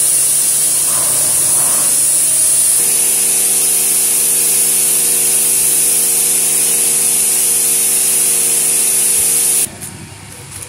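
Pressure washer spraying water onto a car body: a loud, steady hiss of the jet over the even hum of the washer's pump motor. It cuts off abruptly near the end.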